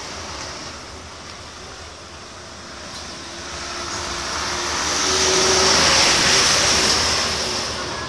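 A motor vehicle passing by, its engine and tyre noise growing louder to a peak about two-thirds of the way through, then fading.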